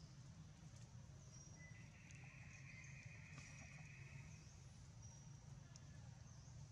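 Near silence: faint forest ambience with a steady low hum and faint high chirps repeating every second or so. A brief buzz comes in about two seconds in and stops after about two and a half seconds.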